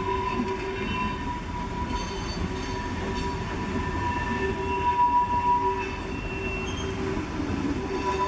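Vintage passenger coaches rolling slowly past on steel rails, their wheels squealing in steady high tones over a low rumble, louder for a moment about halfway through.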